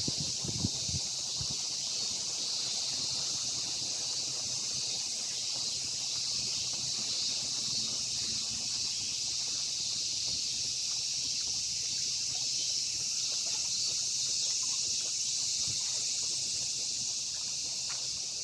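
Steady, high-pitched chorus of summer insects buzzing without a break. A few low knocks come in the first second.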